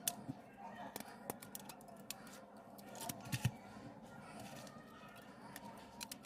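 Small sharp clicks and taps of hand tools and parts being handled during a smartphone repair, with the loudest knocks about three and a half seconds in.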